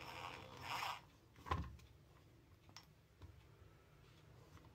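Faint handling noises from a rotary hammer drill's greasy piston and gear housing being moved on a workbench: a soft rustle, then one knock about a second and a half in and a few light ticks. Otherwise near silence.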